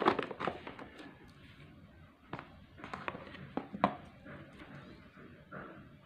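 Handling noise: scattered taps, clicks and light knocks, busiest in the first few seconds and fading toward the end.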